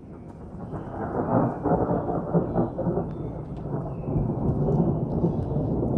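Thunder rumble building about a second in and rolling on loud and deep.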